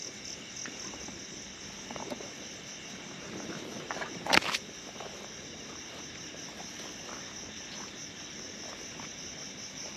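Crickets chirring steadily in the background, with a few faint clicks and one brief loud crack about four seconds in.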